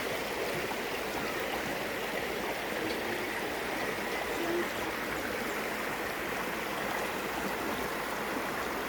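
River water flowing steadily over rocks.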